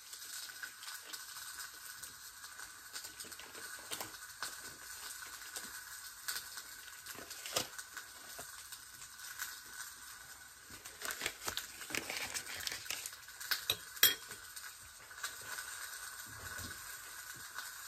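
A utensil clicking and clinking as butter is unwrapped and cut into pieces for baby carrots, with a faint steady sizzle underneath. The clicks come thickest and loudest a little past the middle, with the sharpest clink near the end.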